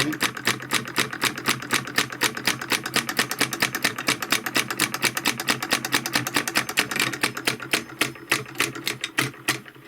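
Homemade solenoid engine running, its coil pulling the piston with rapid, even clicking, about seven or eight a second, over a steady low hum. It is timed by a homemade reed switch that only just keeps it going. Near the end the clicks slow, fade and stop.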